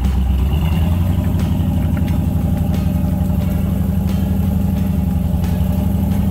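A 4x4's engine running steadily at low revs, stepping up slightly in pitch about half a second in, with a few faint knocks.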